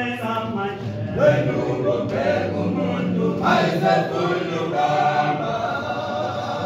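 A group of men singing together a cappella, several voices holding notes in chords with no instruments.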